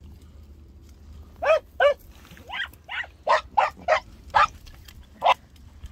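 Podenco Orito hunting dog barking in short, high yelps, about nine barks starting a second and a half in, some in quick runs.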